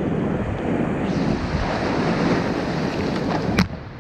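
Rushing whitewater of a creek in flood around a kayak. About three and a half seconds in there is a single sharp knock, after which the water noise suddenly drops.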